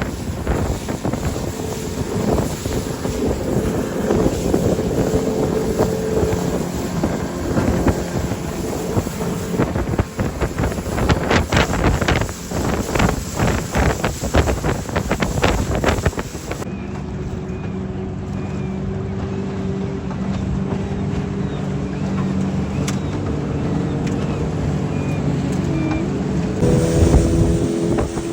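Motorboat's outboard engine running, with wind buffeting the microphone for the first two-thirds. About two-thirds of the way in, the sound changes abruptly to a steadier, even engine hum.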